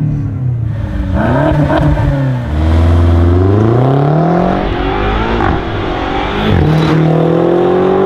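BMW X5M's 4.4-litre twin-turbo V8 revving in neutral, then accelerating hard with the engine note climbing steadily. About two-thirds through the pitch drops and climbs again as it shifts up.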